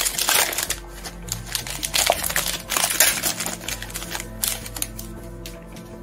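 Plastic foil trading-card pack wrappers being torn open and handled, crinkling and crackling. There is a dense flurry in the first second, then scattered crackles.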